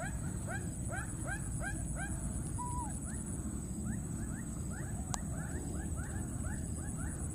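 Baby macaque crying in a steady run of short, squeaky rising-and-falling calls, about three a second, with a steady high-pitched whine underneath.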